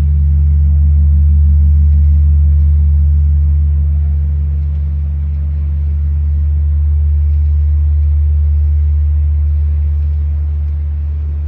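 The great bell of Mexico City's Metropolitan Cathedral, the Campana Mayor, humming on between strokes of a slow mourning toll. The deep hum swells and fades slowly, with no new strike.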